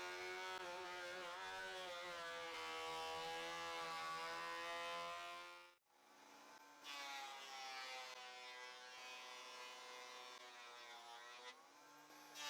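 Electric woodworking machine's motor running with a steady, faint whine, its pitch wavering slightly under load. It cuts off abruptly about six seconds in and resumes a second later at a slightly different pitch.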